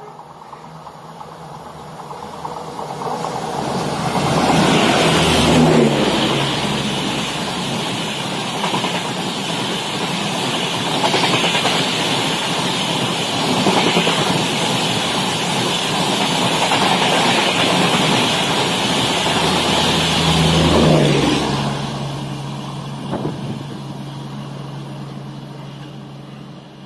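Humsafar Express passenger train running through a station at speed. The noise builds over the first few seconds and is loudest about five seconds in. It then holds as a steady rush of wheels on rails while the coaches go by, and dies away after about 21 seconds as the train recedes.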